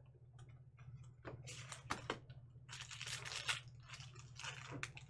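Foil wrapper of a Panini Prizm basketball hobby pack crinkling and tearing as it is ripped open by hand, in a run of short crackly rustles.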